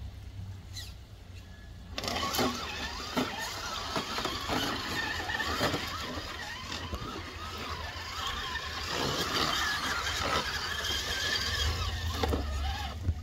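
Electric RC crawler truck driving through a shallow rocky creek: from about two seconds in its motor and gears whine, the pitch rising and falling with the throttle, mixed with splashing and the knocks of its tyres and chassis on rocks.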